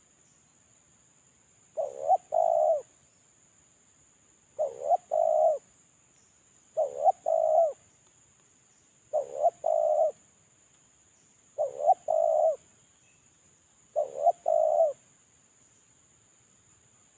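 Spotted dove (terkukur) cooing: six repeated phrases of a few soft notes each, about one every two and a half seconds. A faint steady high-pitched tone runs under the calls.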